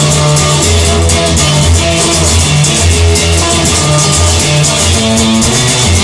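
Rock music: guitar over a moving bass line and a steady drum beat.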